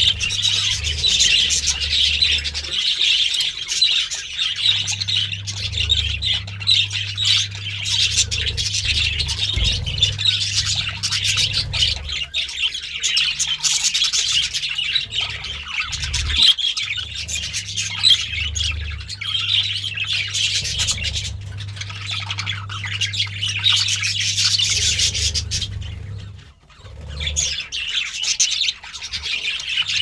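Budgerigars chirping, chattering and squawking without pause, several calls overlapping, over a steady low hum. The chatter dips briefly near the end.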